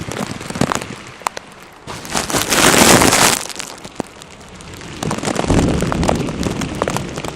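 Heavy thunderstorm rain falling, with sharp ticks of drops hitting close by. There are two louder rushes of noise, one about two seconds in and another about five seconds in; the second is heavier in the low end.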